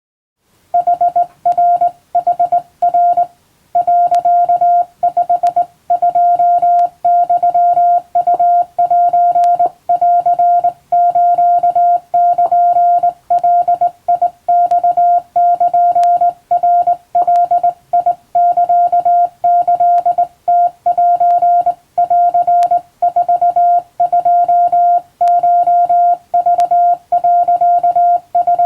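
Hand-sent Japanese (wabun) Morse code: a steady tone of about 700 Hz keyed on and off in dots and dashes, with short gaps between characters. It starts just under a second in.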